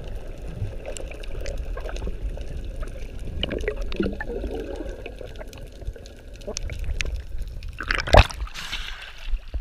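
Water gurgling and sloshing around a camera held underwater, muffled, with many scattered small clicks and a loud sharp thump about eight seconds in.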